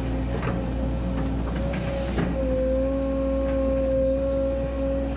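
Volvo 140 hydraulic excavator's diesel engine running steadily under load, with a steady whine that gets stronger a little over two seconds in as the bucket digs. A few sharp knocks come through, the loudest about two seconds in.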